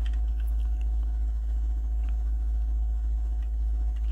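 Steady low electrical hum with a fainter steady tone above it, and a few faint, scattered clicks of computer keys.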